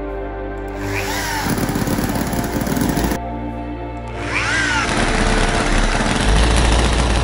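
Electric drill cranking a miniature V-twin model engine to start it, its whine rising and falling, twice; about five seconds in the engine catches and runs with a steady low rumble.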